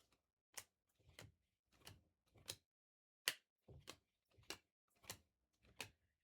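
Faint, quick swishes and clicks of Topps Chrome trading cards being flipped through by hand, about ten in a steady rhythm.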